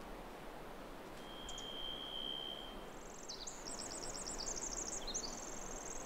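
Songbirds calling: one long, steady, high whistled note about a second in, then a high, rapid trilling song through the second half, over a faint steady hiss.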